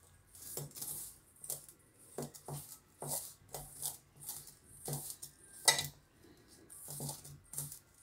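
A hand mixing a dry, crumbly spice-and-ground-snack stuffing in a stainless steel bowl: uneven scraping and rustling strokes about twice a second, with light knocks of the hand against the steel and one louder knock near six seconds in.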